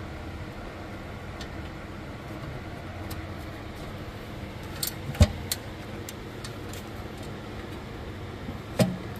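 A few light metallic clicks and taps, the sharpest about five seconds in and another near the end, as steel bolts are threaded by hand into a transmission oil pan, over a steady shop hum.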